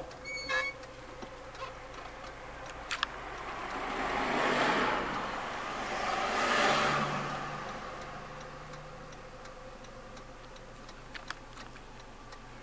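Car interior with the engine humming low and steady, and two whooshes of road noise that swell and fade about four and six and a half seconds in. A few faint clicks come through now and then.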